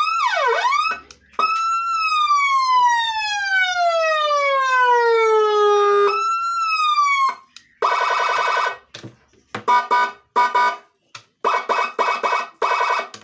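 12-tone electronic siren module sounding through a Narae NSH2020S 25-watt speaker, stepping through its tones. A fast rising-and-falling yelp ends about a second in, then comes a long wail falling slowly in pitch and a shorter falling sweep. From about eight seconds there is a steady buzzy horn tone, then a run of short, chopped horn blasts.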